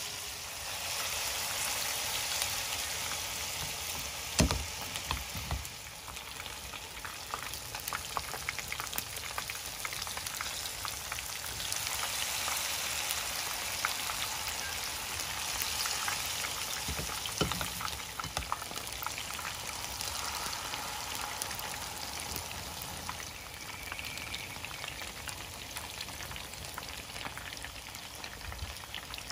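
Battered sweet potato sticks and shrimp deep-frying in a pan of hot oil: a steady sizzle with dense crackling pops. A sharp knock about four seconds in, and a lighter one past the middle.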